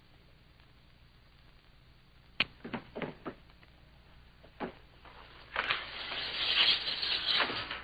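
Several sharp knocks, then a rushing, rubbing noise for about two seconds as a boy slides down a wooden stair banister.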